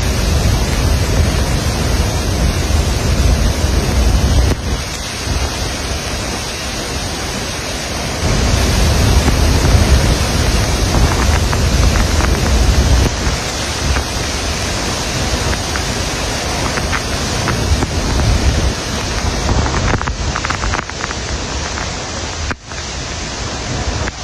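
Loud, steady roar of muddy floodwater in spate, pouring through open dam spillway gates and crashing down a waterfall. It is a dense rushing noise with no pitch, and its loudness shifts a few times.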